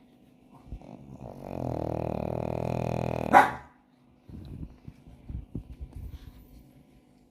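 Pug snoring: one long steady snore of about two seconds that ends in a sudden sharp snort, the loudest sound. Then comes a few seconds of quieter, irregular snuffles and clicks.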